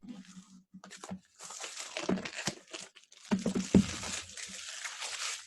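Plastic wrapping crinkling and tearing as a new card game box is opened, a few light clicks and then a long stretch of rustling with louder crackles about three and a half seconds in.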